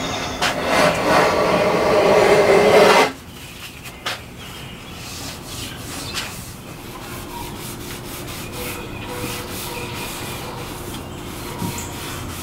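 Metal hand plane shaving along the edge of a cherry board for about three seconds, then stopping abruptly. Quieter rubbing and a few light knocks follow.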